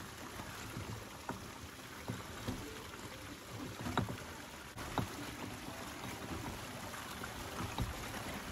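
Rain runoff streaming through and over a plugged road culvert: a steady rush of water with scattered sharp knocks and splashes as a stick is pushed up the culvert to clear the blockage.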